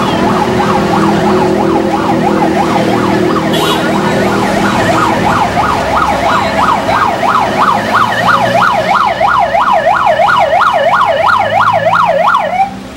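Ambulance siren on a fast yelp, its pitch sweeping up and down about three times a second. It grows louder as the ambulance draws near, then cuts off suddenly near the end.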